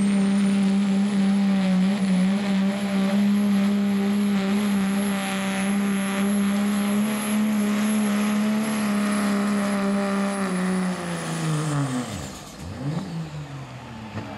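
Turbocharged diesel pickup engine held at full throttle while dragging a pulling sled, with a steady high turbocharger whistle over the engine. About eleven seconds in, the engine and the turbo whistle wind down together and the sound drops as the pull ends.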